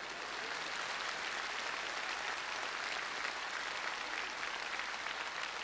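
Studio audience applauding steadily, with laughter.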